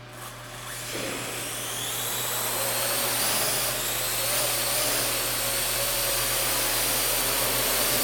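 Parrot AR.Drone 2.0 quadcopter's electric motors and propellers spinning up for takeoff about a second in. The whine rises in pitch and loudness over the next few seconds, then holds steady as the drone hovers and flies.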